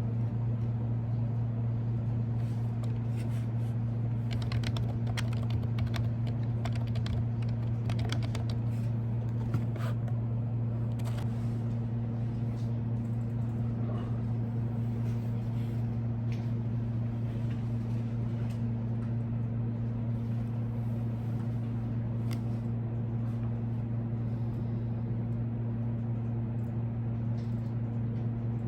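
Typing on a computer keyboard: a run of keystrokes through the first third, then scattered single keystrokes, over a steady low hum.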